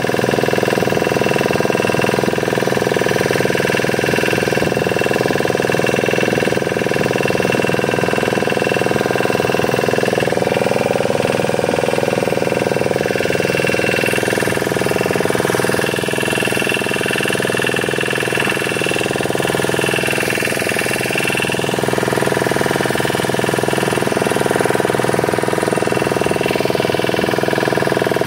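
A small fishing boat's engine running steadily while the boat is under way, its pitch and loudness holding even.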